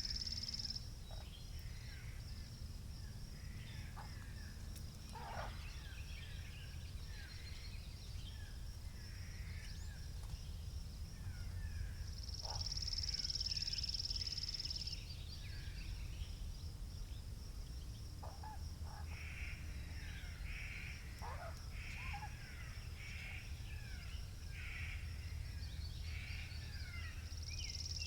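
Wind rumbling steadily with birds chirping and calling all around. A high, continuous trill runs throughout and swells louder for a couple of seconds about halfway through.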